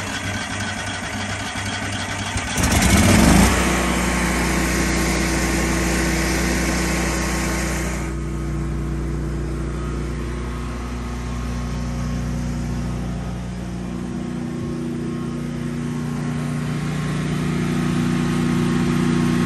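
Kohler 20RESCL standby generator's air-cooled V-twin engine, running on propane, starting up and catching about three seconds in. It then runs at a steady speed.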